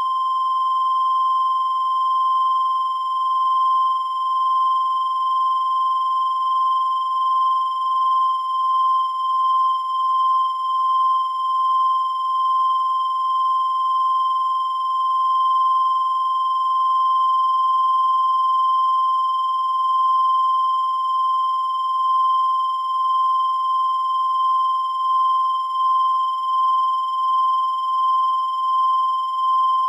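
A single unbroken high-pitched electronic tone, held at one steady pitch, with a slight wavering in loudness.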